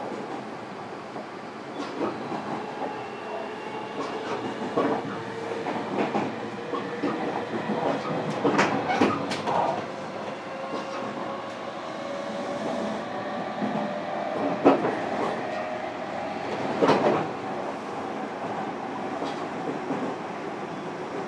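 Inside a 305 series electric train's motor car running at speed: a steady motor whine that slowly rises in pitch over the rumble of the wheels, with wheels knocking over rail joints several times.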